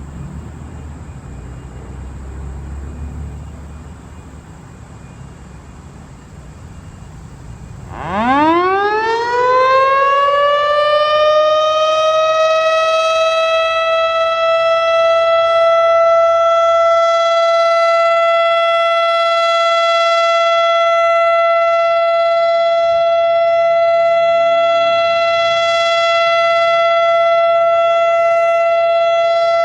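Federal Enterprises Thunderbolt 1000 mechanical warning siren starting up. About eight seconds in it winds up, its pitch rising quickly from a low growl and leveling off into one steady, loud tone that it holds. Before it starts there is only a low rumble.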